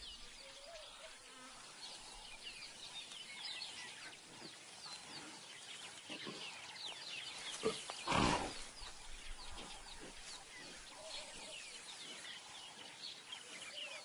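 Faint natural bush ambience: insects and many short, high, falling chirps. A brief louder sound comes about eight seconds in.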